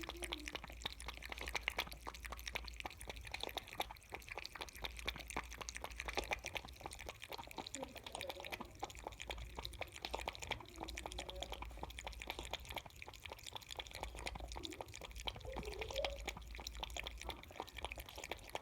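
Kittens lapping milk: a rapid, continuous run of small wet clicks.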